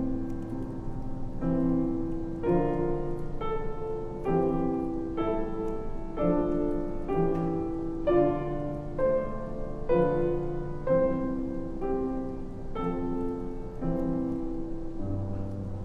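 Slow keyboard music: held chords that change about once a second, with a low bass note sounding at the start and again near the end.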